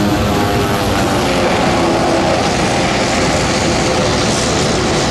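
Bristol Mercury nine-cylinder radial engine of a 1930s RAF propeller aircraft running steadily at power, a loud, unbroken sound with many stacked engine tones.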